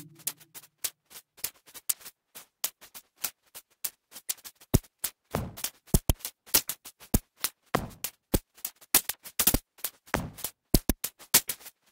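Sparse passage of glitchy IDM electronic music: irregular dry clicks and short electronic ticks, with no sustained chords or bass under them.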